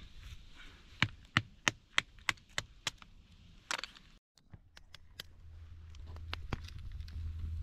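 Knife being batoned through a stick of kindling on a rock: a run of about seven sharp wooden knocks, about three a second.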